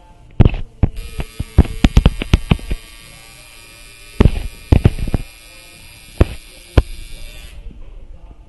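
Electric tattoo machine buzzing steadily for about six and a half seconds, starting about a second in and stopping sharply. Loud irregular clicks and knocks over it, bunched around two seconds in and again around four to five seconds in.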